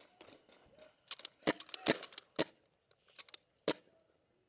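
Paintball markers firing in a speedball game: about eight sharp pops at an uneven pace, starting about a second in.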